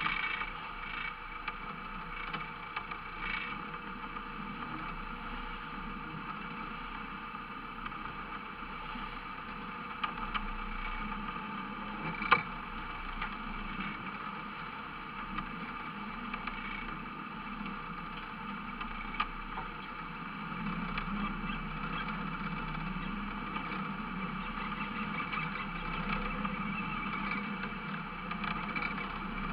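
Fishing boat's engine running steadily, with one sharp knock about twelve seconds in.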